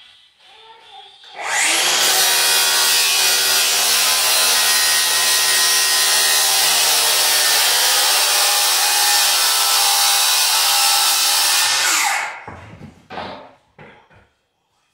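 Small handheld power tool running steadily against a laminate floor plank for about ten seconds, starting about a second and a half in and cutting off sharply, followed by a few light knocks of handling.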